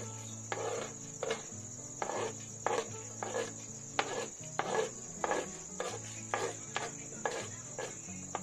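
Steel spoon scraping across a plastic cutting board, pushing chopped carrot into a pot in short strokes about twice a second. Under it runs a constant high chirring of crickets.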